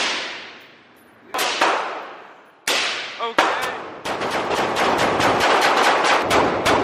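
Gunshots ringing in an indoor shooting range, each with a long echoing decay: single shots spaced a second or so apart, then from about four seconds in a fast string of shots, several a second.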